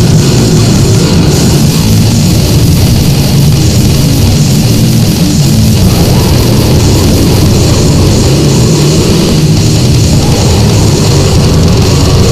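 Loud, dense heavy metal music with guitar and drums, played without a break.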